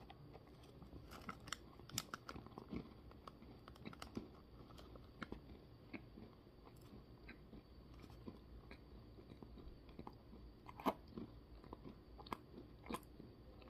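A person biting into a large soft peanut butter cookie and chewing it with the mouth closed: faint, irregular mouth clicks and smacks, a few louder ones near the end.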